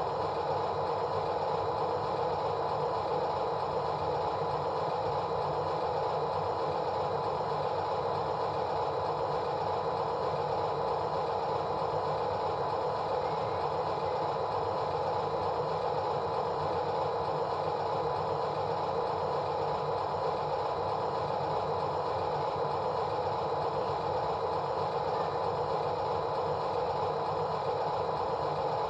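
A motor and its mechanism running continuously with a steady, unchanging whir.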